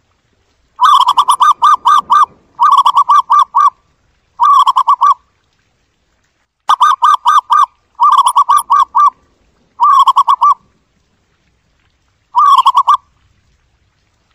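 Zebra dove calling: seven bursts of quick, staccato cooing notes, each burst lasting about a half to one and a half seconds, separated by short pauses.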